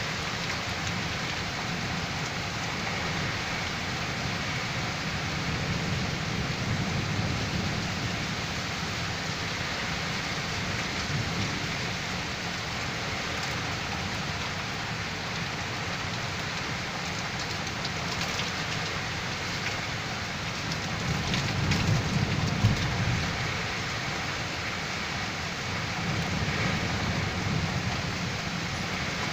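Heavy rain falling and strong storm wind blowing, a steady rushing noise with a low rumble, swelling louder for a couple of seconds about three-quarters of the way through.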